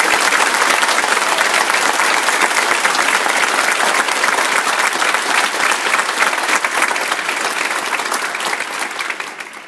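Church congregation applauding: dense, loud clapping that dies away near the end.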